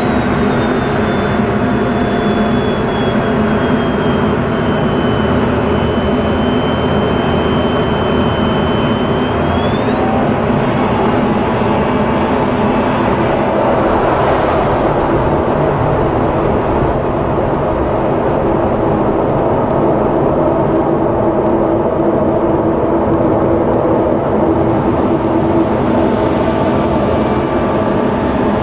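F-16 fighter's jet engine and rushing airflow heard from inside the cockpit in flight: a steady dense rumble with a high turbine whine. The whine slowly falls in pitch, then rises sharply about ten seconds in as the engine spools up.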